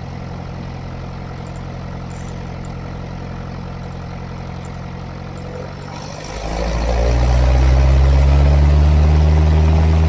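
Cessna 172 Skyhawk's four-cylinder Lycoming engine and propeller running steadily at low power. About six seconds in it is throttled up to full power for the takeoff roll, and the engine note rises quickly and stays loud.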